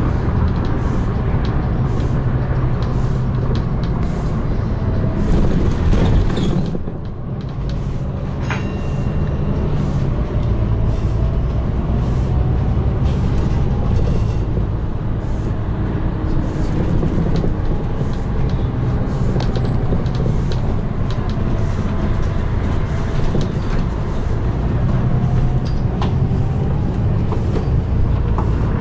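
A London bus on the move, heard from on board: the engine runs under steady road noise, and a faint whine rises and falls in pitch as the bus speeds up and slows. The noise drops briefly about seven seconds in.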